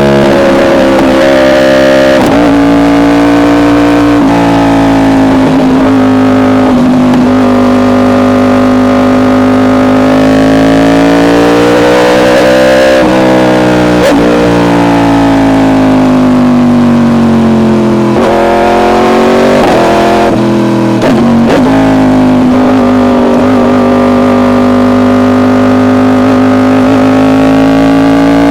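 Yamaha R1 inline-four with an SC Project exhaust running hard at high revs. The pitch rises and falls slowly and breaks off briefly several times.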